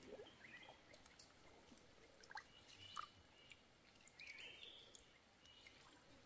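Near silence: faint water splashing as hands work in a shallow creek and a net fish trap is lifted, with a few faint short bird chirps.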